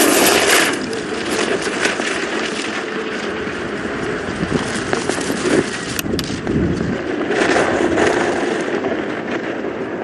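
Downhill racing skis scraping and chattering on hard, icy snow through high-speed turns, a continuous rushing scrape. It swells at the very start and again about eight seconds in.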